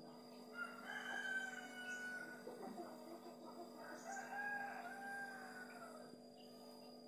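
A rooster crowing twice, the second crow longer and trailing off at the end, over a faint steady hum.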